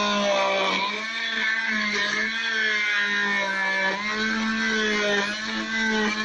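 Oscillating cast saw running with a steady hum, its pitch sagging and recovering a few times as the blade cuts through a fiberglass cast.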